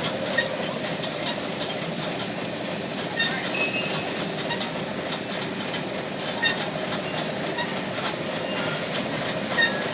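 Servo-driven plastic bag sealing and cutting machine running steadily, a constant mechanical hiss with a few sharp clicks.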